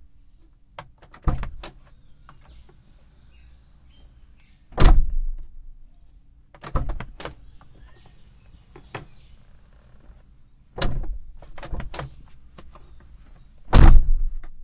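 Vehicle doors being shut: five slams, two to four seconds apart, with the one about five seconds in and the one near the end loudest. Lighter latch and handle clicks fall between them.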